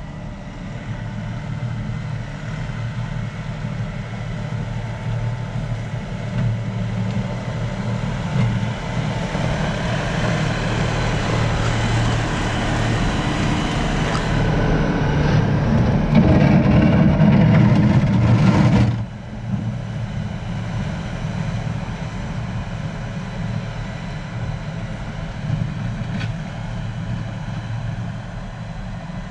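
Diesel engine of an LS compact tractor running as the tractor works the snow with its loader blade, growing louder as it comes close. About nineteen seconds in the sound drops off abruptly and carries on at a lower, steady level.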